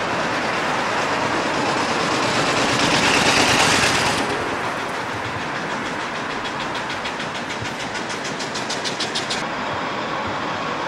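Road traffic going past, with the rush of a passing vehicle swelling and fading about three to four seconds in. Then a rapid even ticking, about seven beats a second, runs for a few seconds and stops suddenly.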